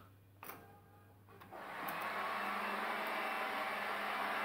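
A click about half a second in, then three heat guns wired in series with the lathe's DC motor come on with a steady blowing hum that swells up and holds. The hum means the starting current is off the scale while the 2.2 kW motor stays stalled, not yet turning.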